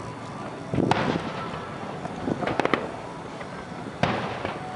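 Aerial fireworks shells bursting: a bang about a second in, a quick run of sharp cracks in the middle, and another bang near the end.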